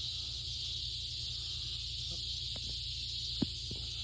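Steady high-pitched insect chorus over a low steady hum, with a few faint clicks and one sharper tap about three and a half seconds in.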